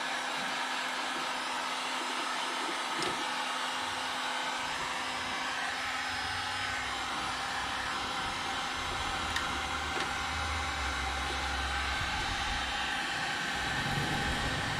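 Electric heat gun running steadily, a fan whir with a constant hum, heating old body trim to soften its adhesive so it can be peeled off.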